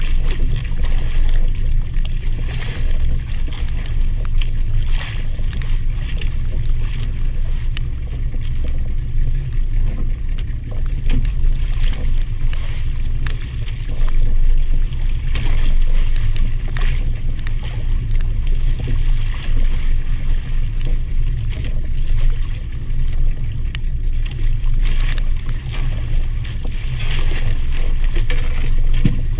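Steady low rumble on a small fishing boat at sea, with scattered short knocks and splashes over it.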